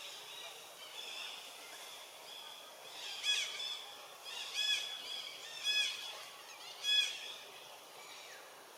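Four short high animal calls about a second apart, each rising and then falling in pitch, over faint steady high-pitched background calling.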